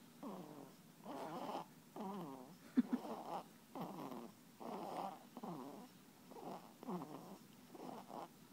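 Newborn baby snoring in sleep: short, rhythmic snoring breaths in quick succession, about three every two seconds.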